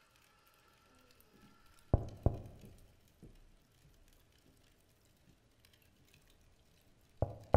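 Two quick knocks on a door about two seconds in, then two more near the end, each with a short echoing tail. Under them runs the faint crackle of a fireplace.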